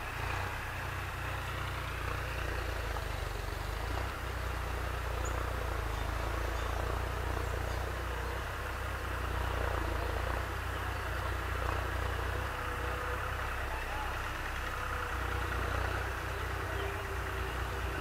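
An engine running steadily at low revs, a constant low hum.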